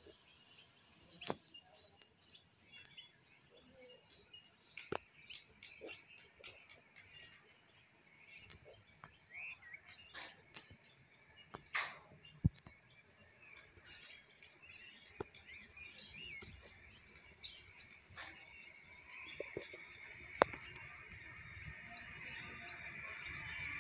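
Birds chirping and calling, with a sharp click about halfway through and another near the end. In the last several seconds a steady rush grows louder: an electric suburban train approaching along the tracks.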